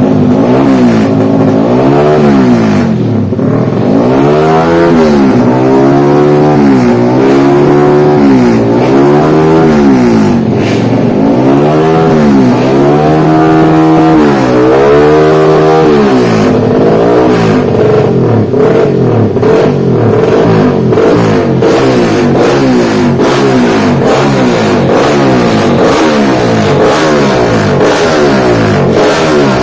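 Race-tuned Yamaha MX King 150's single-cylinder four-stroke engine being revved, the pitch climbing and dropping back again and again, about every two seconds at first and in quicker, shorter blips from about halfway on.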